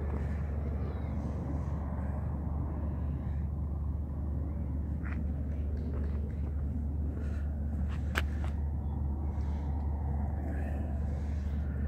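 Steady low outdoor rumble of background noise, with a single sharp click about eight seconds in.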